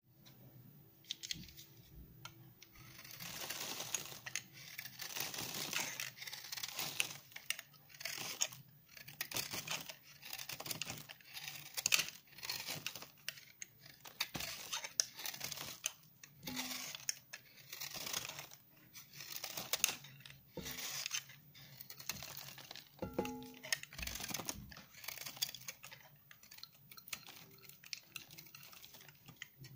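A utility knife blade shaving a bar of 72% laundry soap that has been dried hard, each stroke a dry, crunchy scrape with crackling clicks as flakes break off. The strokes repeat about once a second, starting a few seconds in.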